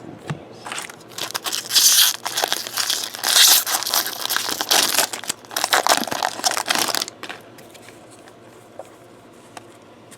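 Plastic wrapping crinkling and rustling as it is handled, in loud uneven bursts for about six seconds, then stopping.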